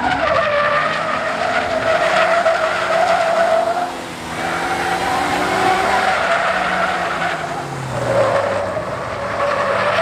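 Tyres squealing continuously as a van with a non-turbo 2.4-litre 4G64 four-cylinder and automatic gearbox is drifted sideways, its engine revving up and down underneath. The squeal wavers in pitch and dips briefly about four seconds in and again near eight seconds.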